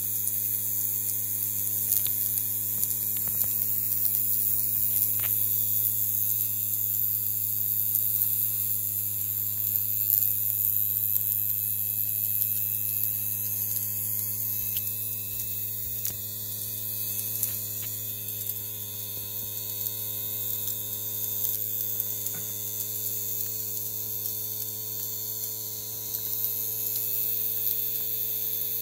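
Lilliput miniature live-steam engine, a tiny brass oscillating-cylinder engine, running fast and steady: an even hum with a hiss of steam over it.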